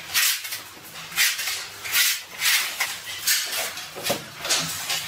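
Steel trowel scraping and combing tile adhesive across a concrete floor in repeated short strokes, about two a second.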